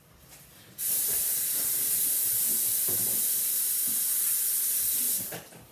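Kitchen faucet turned on about a second in, water running steadily into a stainless steel sink as hands are washed under it, then shut off near the end.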